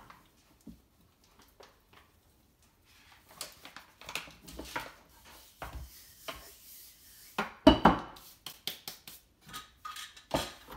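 Scattered knocks and clatter of kitchen things being handled on a countertop. The loudest clanks come near the end, as the Thermomix's lid and metal mixing bowl are taken off the base.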